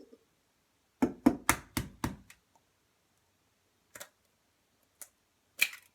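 An egg being knocked against a hard edge to crack it: about six quick sharp taps in a row about a second in, then a few single lighter clicks.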